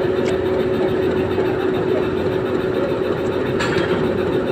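Metre-gauge diesel locomotive's engine running with a steady low hum as the locomotive moves slowly in for coupling. Two brief metallic clicks cut through it, a faint one just after the start and a louder one near the end.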